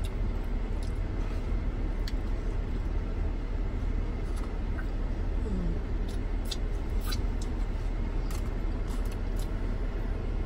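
Steady low rumble inside a parked minivan's cabin, from the running van, with scattered small clicks and smacks of chewing and handling food close to the microphone.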